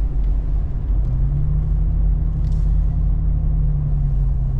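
Toyota FJ Cruiser with its 4.0-litre V6 driving, heard from inside the cabin: a steady low engine and road rumble, with a steady low drone coming in about a second in.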